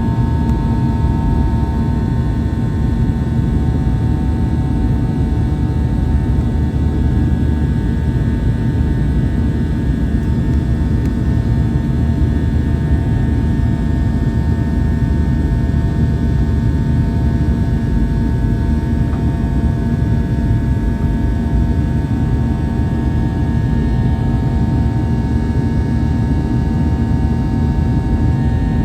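Steady cabin noise of a Boeing 737-800 with CFM56-7B engines in flight: a deep, even rumble of airflow and engines with a few steady whining tones over it.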